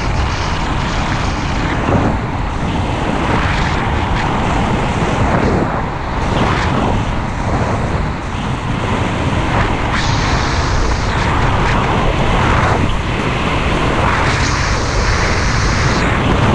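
Wind buffeting the microphone of a skier's body-worn camera during a fast downhill run, with skis scraping and hissing on groomed snow in swells that come and go with the turns.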